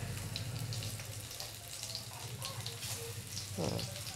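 Breaded vegetable chops shallow-frying in oil in a frying pan over a medium gas flame: a steady sizzle with light crackling, over a low steady hum.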